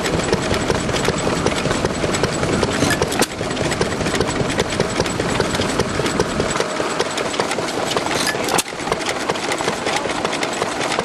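Amanco horizontal open-crank stationary engine with low-tension ignition (igniter, no spark plug) running, a steady run of rapid mechanical ticks and clicks from the engine and its valve and igniter gear.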